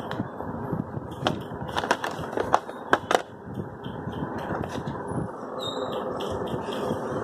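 A cardboard smartphone box and its packaging being handled: a handful of sharp clicks and taps between about one and three seconds in, over steady background noise.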